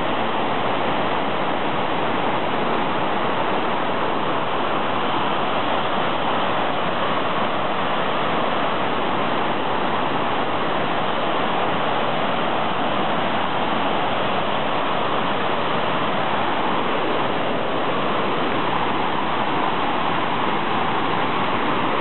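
Steady rushing of water spilling over low, tiered cascades of a waterfall into pools, an even, unbroken roar of falling water.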